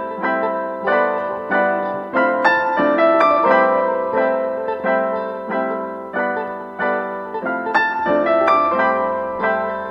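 Background music: a piano-like keyboard melody, notes struck about twice a second.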